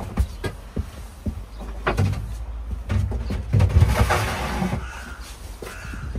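Plastic water jerrycans being set down and pushed into place under a plywood sink cabinet: a run of hollow knocks and clunks, with a longer scraping rush about four seconds in.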